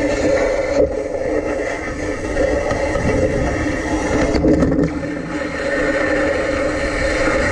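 Electric tram running along its track, heard from a camera on the trolley pole: steady running noise with a low, buffeting rumble, broken briefly about four and a half seconds in as the trolley head passes an overhead wire fitting.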